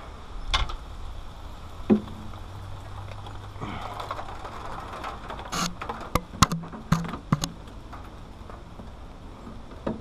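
Scattered sharp clicks and knocks of tools and parts being handled while covers are taken off a mini excavator, with a quick run of them about six to seven and a half seconds in. A short low hum comes about two to four seconds in.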